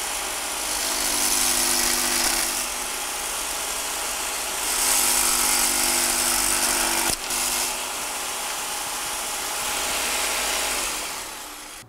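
Table-mounted electric jigsaw running and cutting a small wooden strip to a rough lure-body outline. Its sound swells as the blade bites into the wood and eases between cuts, with a brief dip about seven seconds in.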